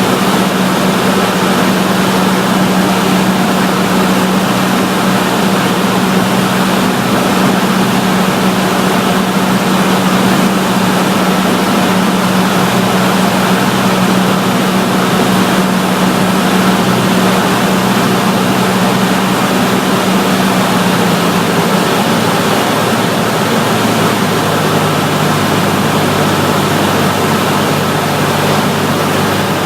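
Cessna 152's four-cylinder Lycoming engine and propeller running steadily under heavy wind and airframe noise. About three quarters of the way through, the engine note drops to a lower pitch as power is reduced.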